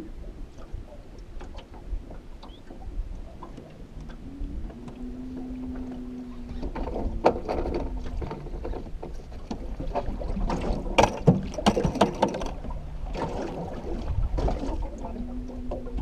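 Small fishing boat afloat on open water: water lapping at the hull and a low wind rumble, with a steady hum that comes in twice for a second or two. A run of sharp knocks and clatter on the boat comes in the middle and is the loudest sound.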